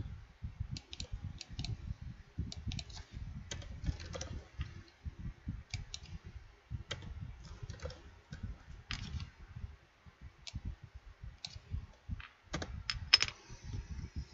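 Typing on a computer keyboard: irregular key clicks and taps in short runs, with a brief pause about ten seconds in.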